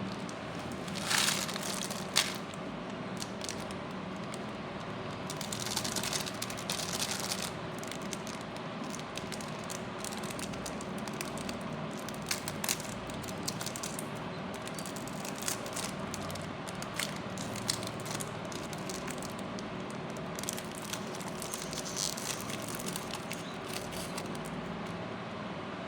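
Chocolate wrappers and packaging crinkling and crackling as they are handled and opened, in irregular rustles and small clicks over a steady background hum.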